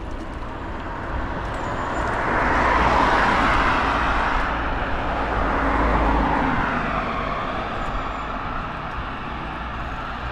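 Cars passing on the road close by, their noise swelling and fading twice, loudest about three seconds in and again around six seconds.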